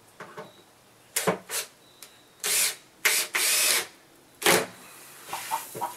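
Cordless drill-driver run in short bursts, fastening a plywood panel from underneath, with one longer run about three seconds in.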